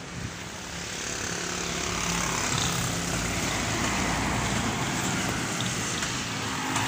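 A steady engine drone with a rushing noise that swells over about the first two seconds and then holds.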